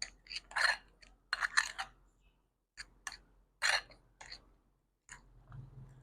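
Shawarma sauce being put onto a rumali roti: a series of short, wet clicks and squelches, several close together in the first two seconds and a few more spaced out after, with a low hum near the end.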